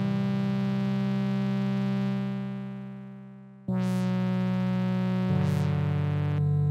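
V-Station software synthesizer playing an atmospheric keyboard preset: sustained chords, the first fading away, then a new chord struck about halfway through and changing twice more near the end, each new note opening with a brief bright edge.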